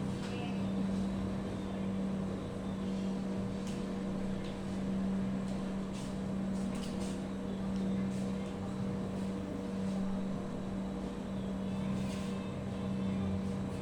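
Steady low mechanical hum with an unchanging pitch, and a few faint clicks now and then.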